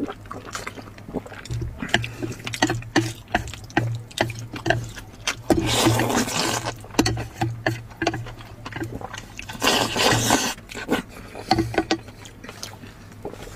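A person slurping hot dry noodles in two long noisy slurps, about six and ten seconds in, with wet chewing and smacking clicks in between.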